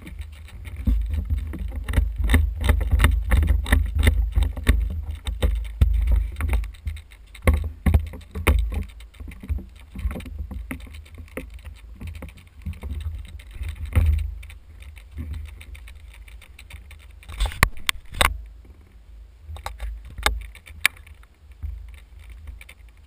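Footsteps on a dirt track and gear rattling and knocking against a body-worn camera as its wearer moves, over a heavy, uneven low rumble of movement and wind on the microphone. A few sharp knocks stand out about three quarters of the way through.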